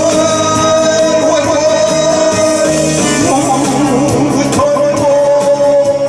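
A man singing live through a handheld microphone and PA over recorded accompaniment, holding two long notes: one at the start and one near the end.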